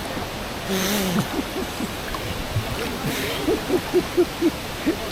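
Steady rush of the fast current in the pool at the top of a waterfall, with splashes about one and three seconds in. In the second half come short voiced puffs and grunts, about four a second, from a swimmer straining against the current.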